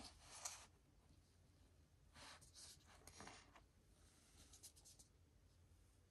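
Faint rustling and sliding of paper and card as a vinyl LP's sleeve and printed insert are handled, in a few short bursts with hush between them.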